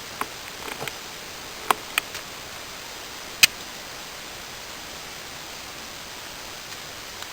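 Steady hiss with a handful of short, sharp clicks in the first few seconds, the loudest about three and a half seconds in, followed by only the hiss.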